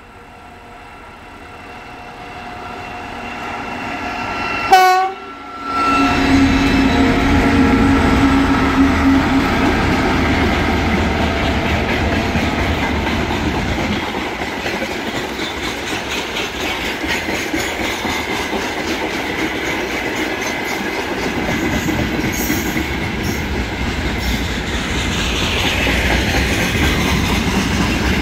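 2TE25KM twin-section diesel locomotive hauling a freight train, growing louder as it approaches, with a short horn blast about five seconds in and its engine drone as it passes close. Freight wagons then roll by with a steady clickety-clack of wheels over rail joints.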